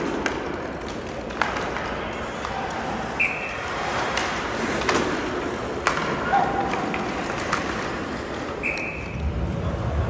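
Sled hockey play on ice: several sharp clacks of sticks and puck striking, over a steady scraping hiss of sled blades and sticks on the ice.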